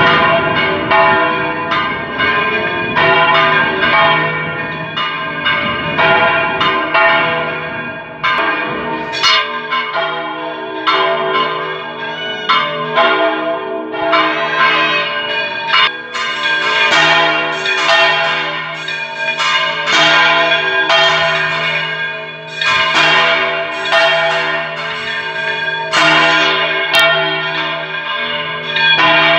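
Three church bells swung full circle in a Valencian-style volteo: the 927 kg San Jordi in F, the 244 kg Santíssim Crist del Consol in C and the 81 kg Rabajolet in G, cast in 1954 and 1662. They clang over and over in a busy, irregular pattern. A low rumble sits under the first third, and a low steady hum holds under the strikes from then on.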